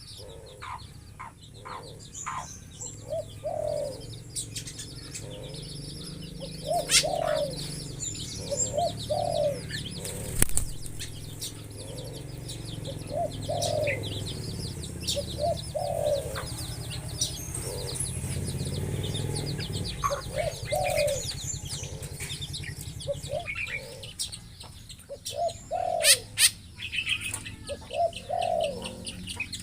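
Caged birds calling: short, low two- or three-note coos repeat every couple of seconds over busy high-pitched chirping, with a low steady hum underneath and a few sharp clicks.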